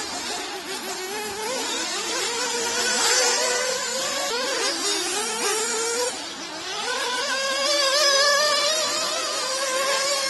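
Nitro engines of 1/8-scale off-road RC buggies racing, with a high buzzing whine that keeps rising and falling as the cars brake and accelerate. About seven seconds in, one engine holds a long whine that climbs slowly in pitch.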